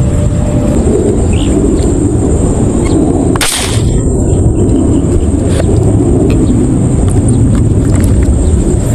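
A single sharp shot from a homemade fishing airgun fired into the water, about three and a half seconds in, over a steady low rumble.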